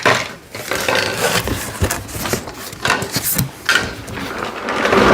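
Plastic toy workbench parts and their packaging being handled and unpacked: irregular clicks and knocks of pieces bumping together, with rustling, louder near the end.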